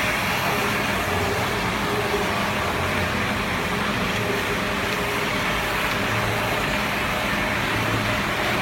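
Steady road-vehicle noise: an even rush with a faint low engine hum beneath it.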